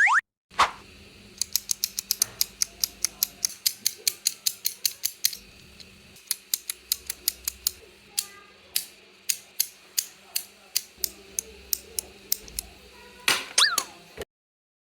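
A 3D-printed plastic flip-flop clicker fidget toy being clicked over and over, sharp plastic clicks about four a second at first, then slower with short pauses. A short swooshing sound effect comes near the end.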